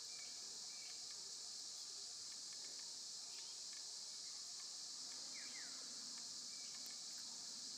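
Steady high-pitched chorus of insects, with a couple of faint short falling chirps about three and five seconds in.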